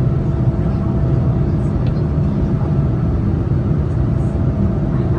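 Steady cabin roar inside a Boeing 787-9 in flight, engine and airflow noise heard from a window seat as the airliner climbs after takeoff, with a faint steady hum riding on top.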